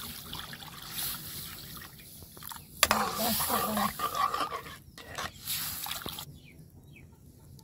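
Rice water poured from a steel ladle into a steel kadai of cooked-down tomatoes, splashing in, then a metal ladle stirring and scraping around the pan. A short voice-like call sounds about three seconds in.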